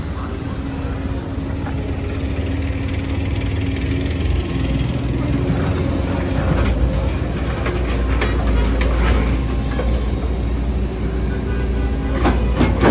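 Volvo EC210D excavator's diesel engine running steadily with a deep rumble, and scattered metallic clicks and clanks about halfway through.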